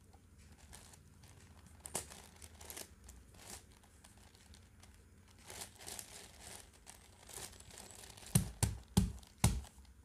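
Plastic clicks and rustling of a 10x10x10 Rubik's cube as its slices are turned by hand, with several louder sharp clacks near the end.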